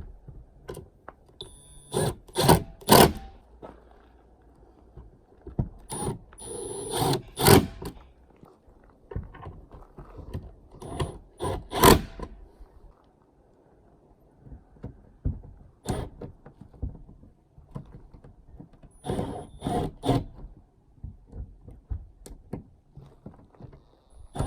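Cordless drill driving mounting screws in several short bursts a few seconds apart, with knocks and rattles of handling between them.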